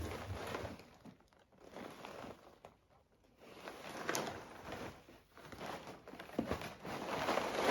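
Cereal boxes and their packaging being handled, rustling and crinkling in irregular bursts, with a sharp tap about four seconds in and louder rustling near the end.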